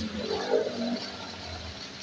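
Heavy rain falling: a steady hiss of rain with water splashing and pouring off a roof edge.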